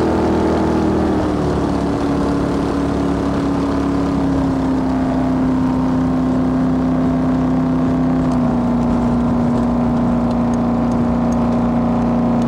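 Big-block Chevy 468 V8 with dual Holley four-barrels and Bassett headers, powering an 18-foot jetboat, running hard at speed in one steady, loud note. Its pitch drops a little about a second and a half in and again a little past the middle.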